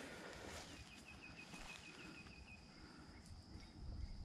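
Faint outdoor wildlife ambience: a steady high-pitched insect hum, with a quick chirping trill of a dozen or so short notes starting about a second in.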